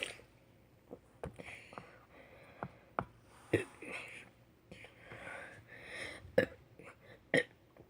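A person's quiet, short burps, several in a row, with soft breaths between them.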